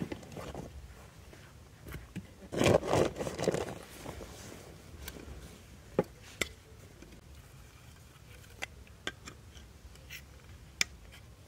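Camping gear being handled: a burst of rustling and scraping about two and a half seconds in, then scattered sharp clicks as a small folding camping stove is unfolded and set up.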